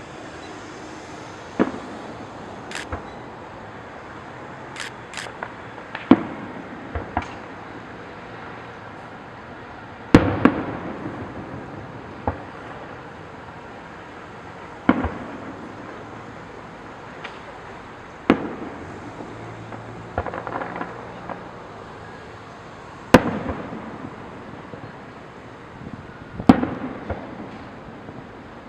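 Fireworks display: aerial shells bursting with about seven loud, sharp bangs a few seconds apart, each trailing off in a rolling echo. Lighter pops and a stretch of crackling come between them.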